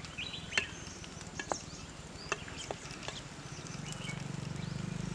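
Scattered sharp clicks and taps, then a low motor hum that comes in about two-thirds of the way through and grows louder.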